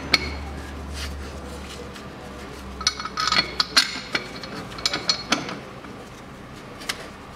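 Hand tools and bolts clinking and tapping on steel at the car's engine mount bracket: scattered sharp metallic clicks, with a quick cluster about three to four seconds in and a few more around five seconds. A low hum stops about two seconds in.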